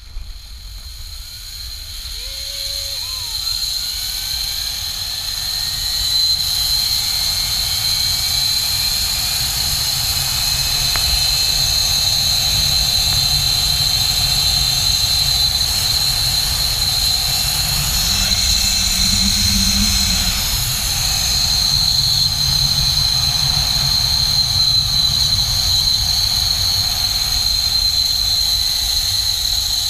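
Zip-line trolley running along the steel cable with wind rushing over the GoPro's microphone, building over the first several seconds as the rider picks up speed and then holding steady. A constant high-pitched whine sits over the roar.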